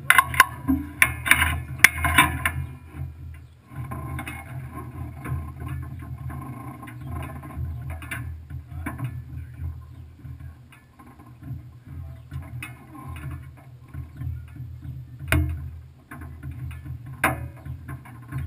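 Off-road trophy truck's engine idling with a steady low rumble, rougher and louder for the first two seconds or so. A couple of sharp clicks or knocks come near the end.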